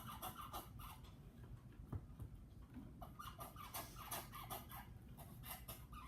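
Sticky slime being kneaded and squeezed in the hands, giving runs of small wet clicks and crackles, with a soft thump about two seconds in.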